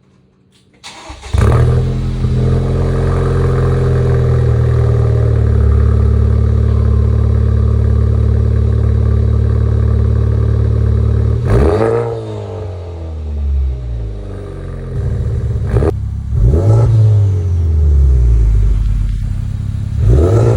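Honda Civic Type R FK8's turbocharged 2.0-litre four-cylinder, fitted with a catless front pipe, downpipe and aftermarket exhaust, comes in loudly about a second in and runs steadily. Then it revs up sharply three times, each rev dropping away slowly, with a single sharp crack near the middle.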